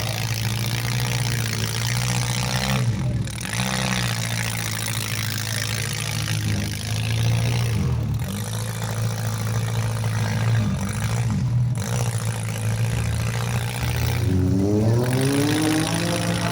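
Demolition derby cars' engines running and revving hard, with clattering.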